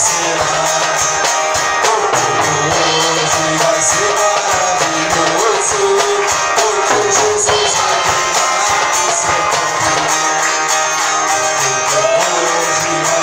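A man singing over an acoustic guitar strummed in a steady rhythm.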